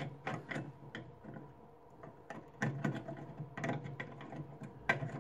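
Light, irregular metal clicks and scrapes of a screw being handled and started by hand into the chrome trip-lever overflow plate of a bathtub drain, over a low steady hum. The sharpest click comes near the end.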